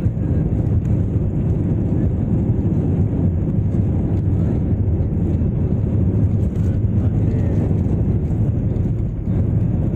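Jet airliner cabin noise as the plane rolls along the ground: a steady low rumble from the engines, even in level throughout.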